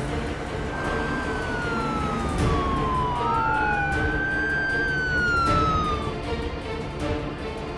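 Police car siren wailing in slow sweeps: one long falling glide, then a second that rises and falls again, over background music with a low steady drone.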